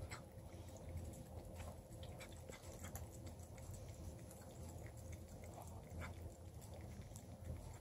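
Bluetick pocket beagle puppy gnawing on a chew stick: faint, scattered clicks of teeth on the stick over a low steady hum.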